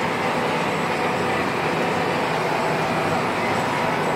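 Massey Ferguson 7626 tractor's six-cylinder diesel engine running steadily under load while pulling a disc harrow, heard from inside the cab.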